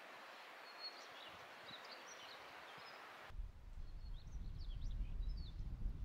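Small birds chirping over the steady rush of a valley stream. About three seconds in, the sound cuts abruptly to a low, uneven rumble of wind on the microphone, and the birds keep chirping.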